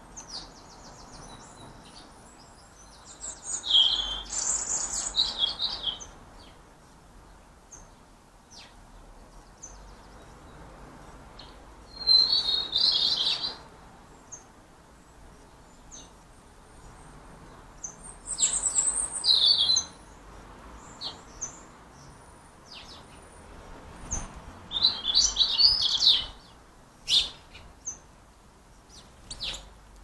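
European goldfinches twittering: four bursts of high, fast song a few seconds apart, with short single calls between them.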